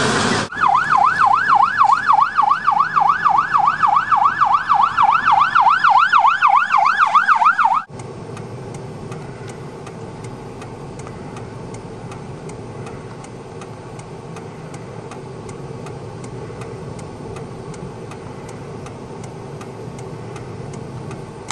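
Emergency vehicle's electronic siren in fast yelp, sweeping up and down about four times a second. About eight seconds in it cuts off abruptly, leaving a quieter, steady low engine rumble with faint regular ticking.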